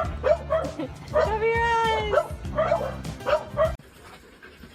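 A dog giving a run of short barks, about two to three a second, with one longer drawn-out call in the middle. It cuts off suddenly near the end.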